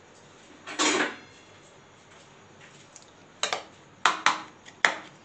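Utensil clattering and clinking against a ceramic bowl while eggs and chopped onion are beaten for an omelette: one longer clatter about a second in, then a run of sharp clinks in the last two seconds.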